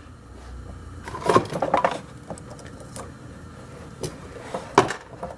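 Handling noise on a workbench as a cord and parts are moved about: a cluster of knocks and rattles about a second in, a few light clicks after it, and one sharp click near the end.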